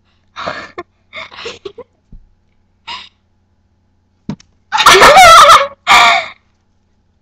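A person giggling in short breathy bursts, then breaking into loud laughter close to the microphone about five seconds in.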